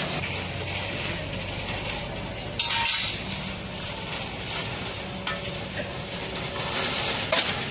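A wheeled excavator's diesel engine runs steadily while bricks and rubble clatter and crack as the building is knocked down, with louder bursts of falling debris about two and a half seconds in and near the end.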